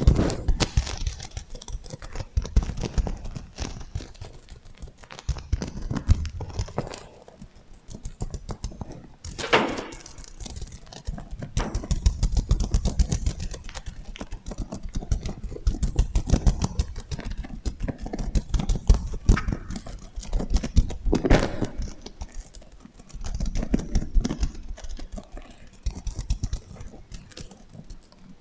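Sequins on a sequin heart cushion being scratched and flipped, dense rapid clicks and rustles that swell and fade in waves, played with an echo effect.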